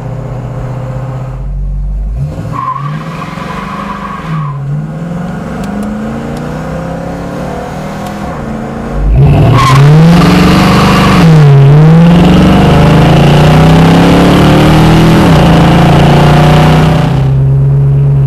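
A 1970 Ford Mustang Mach 1's 351 Cleveland four-barrel V8 accelerating through the gears: the exhaust note climbs, dips briefly at each upshift, then climbs again. About nine seconds in it becomes much louder, heard from right under the car, and it settles into a steady cruise near the end.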